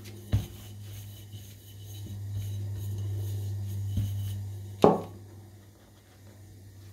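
Glass bottle rolled over stuffed paratha dough on a wooden board: a soft rubbing sound that swells for a couple of seconds, with light taps. A single sharp knock about five seconds in is the loudest sound. A steady low hum runs underneath.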